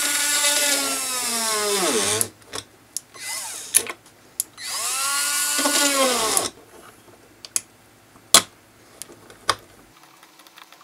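Electric drill-driver driving screws. Its motor whines at a steady pitch for about two seconds, then winds down. A brief burst follows, then a second run of about two seconds that spins up and winds down. A few sharp clicks and knocks follow in the second half.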